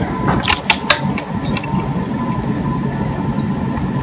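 Several short clicks and rustles from handling automotive wiring-harness wires and a loose terminal pin, bunched in the first second or so. They sit over a steady low mechanical hum with a faint high tone.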